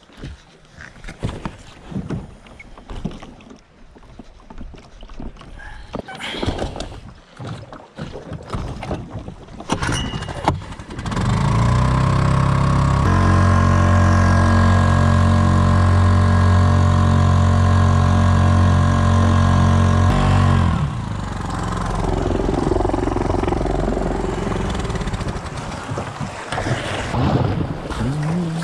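Scattered knocks and clicks, then about eleven seconds in a boat's loud, low, steady drone that stops suddenly about nine seconds later.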